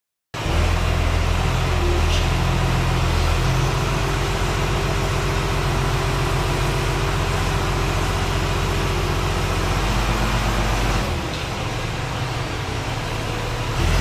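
Komatsu wheel loader's diesel engine running close by as the loader moves, a steady low drone that eases off about eleven seconds in.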